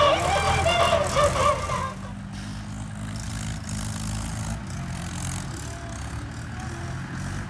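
A song with vocals plays loudly and cuts off about two seconds in; after that a Mahindra tractor's diesel engine is heard running steadily, quieter, with a low hum.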